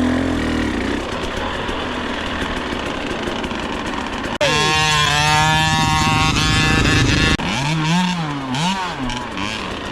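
Small two-stroke dirt bike engine, a Husqvarna TC65, running with the revs rising and falling. About four and a half seconds in the sound changes abruptly to a louder, revving engine, and near seven and a half seconds it changes again to revs wavering up and down.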